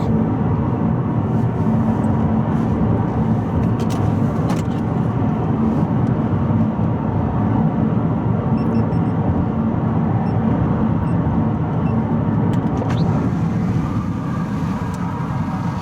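Car driving at speed, a steady drone of engine and road noise heard from inside the cabin, with a couple of faint clicks.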